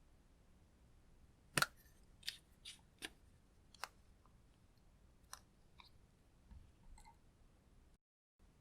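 A series of about eight sharp clicks and snaps at irregular intervals, the loudest about one and a half seconds in.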